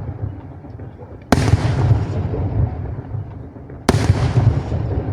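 Two firework shells bursting about two and a half seconds apart. Each is a sharp bang followed by a long rolling echo that slowly dies away.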